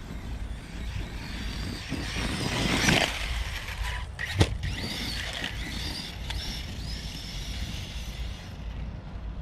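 Arrma Notorious 6S brushless RC stunt truck running over dirt, its motor whining up and down in pitch, with a louder surge about three seconds in and a sharp knock a moment later.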